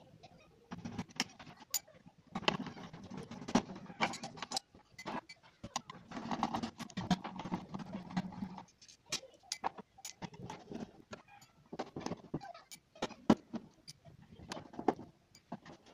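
Sharp clicks and knocks of a metal wall-mount bracket and its screws being handled and lifted off the plastic back cover of an LED TV.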